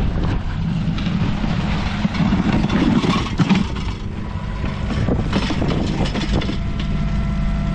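Mini excavator's diesel engine running steadily, with a few knocks and scrapes from the bucket working the wet ground. A steady higher tone joins the engine near the end.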